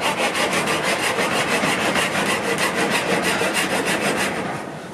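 Saw cutting through a stick of ash wood in quick, even back-and-forth strokes, easing off near the end as the cut goes through.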